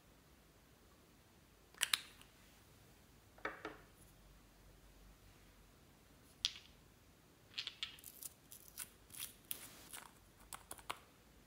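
Clear slime being worked by hand, giving off scattered sharp clicks and pops, with a quick run of crackling clicks in the last few seconds.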